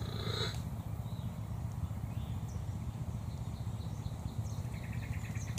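Outdoor ambience: a steady low rumble, with a few faint, short bird chirps in the second half.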